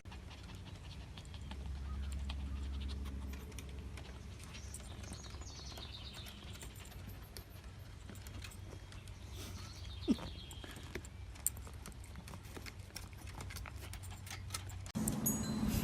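Faint animal calls, high and wavering, over a low rumble, with a few scattered clicks.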